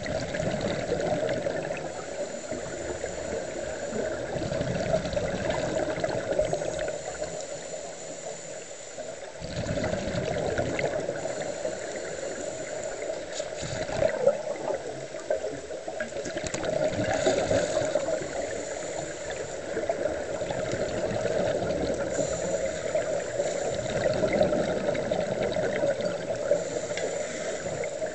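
Scuba divers breathing through regulators underwater, their exhaled bubbles gurgling out in slow swells every few seconds.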